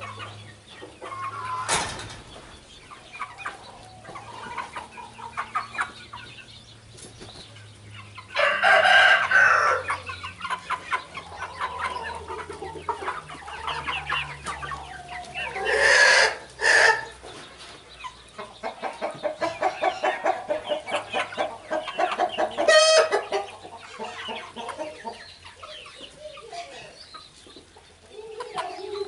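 Chicken flock clucking, a mix of young birds and older hens. Two loud calls about a second and a half long come about eight and sixteen seconds in, and a run of fast, rhythmic clucking builds around the twenty-second mark.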